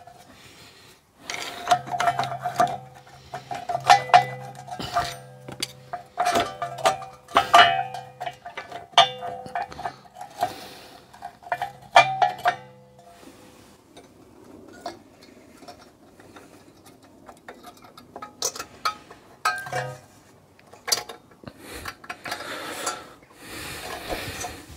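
Light metallic clinks, taps and scrapes as rear handbrake shoes and their springs are handled and seated by hand on a brake backing plate. Steady background music plays under them for the first half and stops partway through.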